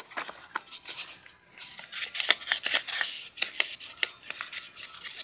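Fine 2000-grit sandpaper rubbed by hand around a brake caliper piston to clean its surface: a quick run of scratchy strokes that gets busier and louder about one and a half seconds in.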